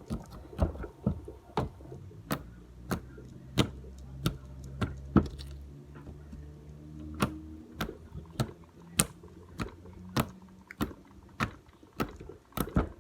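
Homemade slime being squeezed and pressed by hand to make it click: a steady series of sharp clicking pops, about two a second.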